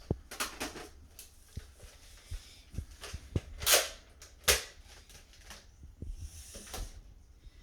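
Plastic clicks and knocks from a Nerf blaster and its attachments being handled, with a short louder burst and a sharp snap a little past the middle.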